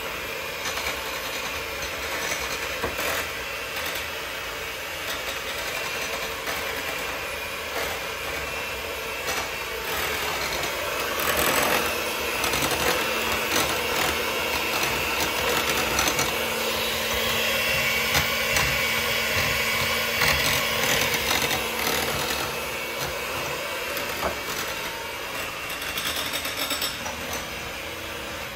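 Electric hand mixer running, its beaters whisking thin, liquidy cake batter in a glass bowl. The motor is steady and gets louder with a low hum through the middle stretch.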